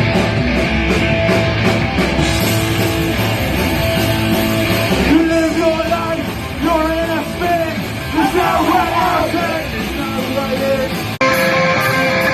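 Punk rock band playing loud live, an instrumental passage with electric guitar. About five seconds in the low end drops away, leaving a wavering, bending lead line, and near the end the sound cuts abruptly into the full band again.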